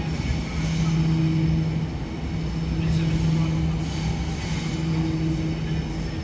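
Electric passenger train running with a steady low hum over a rumble, the hum dropping out briefly a few times.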